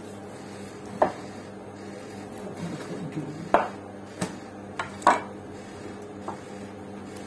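A butcher's knife cutting bone-in meat on a wooden chopping block. The blade and the cut pieces knock on the wood about six times, sharp and irregular, over a low steady hum.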